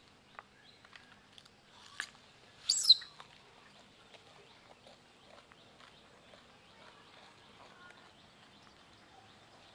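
Faint clicks and crunches of young macaques chewing and handling cucumber, with a sharp click about two seconds in and a short, high-pitched chirp, the loudest sound, about three seconds in.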